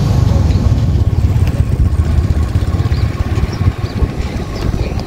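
A nearby engine running with a steady low rumble that eases slightly near the end.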